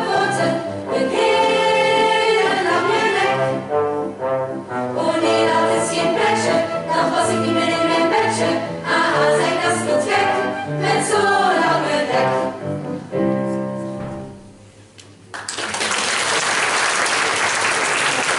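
Children's choir singing a Dutch song with brass accompaniment, the music closing out about 13 seconds in. From about 15 seconds in the audience applauds.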